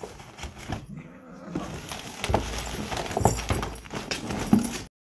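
Two cats scuffling in and around a nylon play tunnel: rustling fabric and scattered knocks, with short cat cries, and the sound cuts off suddenly near the end.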